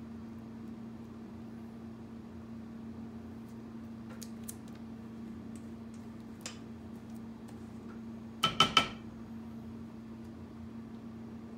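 A utensil scraping cream cheese topping out of a stainless steel mixing bowl onto brownie batter in a glass baking dish, with a few light clicks. A little past the middle come three quick ringing knocks of the utensil against the metal bowl, the loudest sound, over a steady low hum.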